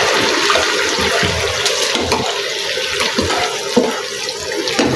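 Watery chilli sauce sizzling and bubbling hard in an oiled frying pan over a gas flame, a steady hiss with a few light scrapes and ticks of a metal spoon stirring it.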